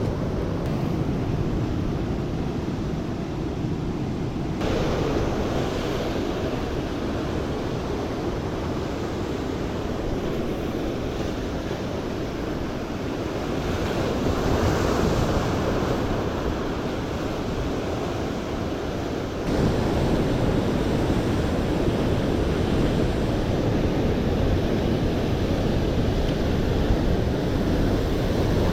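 Rough sea surf with wind buffeting the microphone. The sound changes abruptly twice, about four and a half seconds in and again near twenty seconds.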